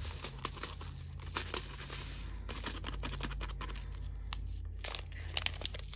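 Diamond-painting drills (tiny resin rhinestones) pouring from a snipped plastic baggie into a storage container: a dense stream of small clicks and rattles, with the bag crinkling.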